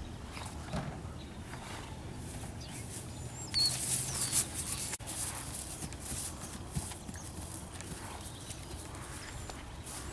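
Buckskin mare and her week-old filly moving about on grass, their hooves making soft steps, with a brief breathy rush of noise about four seconds in.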